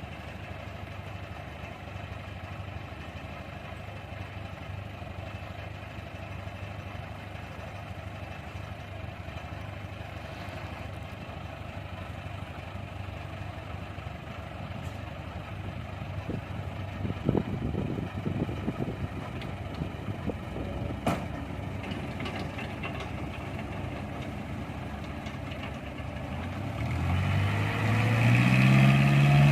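A heavy diesel engine of a dump truck or mini excavator idling steadily, with a few knocks past the middle. Near the end the engine revs up, its pitch rising and the sound growing louder.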